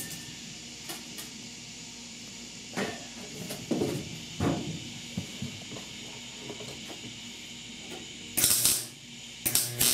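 Scattered light clicks and knocks as a MIG welder's wire speed is turned up, then two short, loud hissing bursts near the end.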